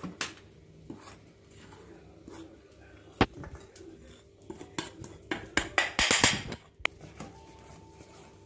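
Wire whisk tapping and scraping against a stainless steel bowl while working flour into wet cake batter: scattered clicks, with a louder run of quick scraping strokes about six seconds in.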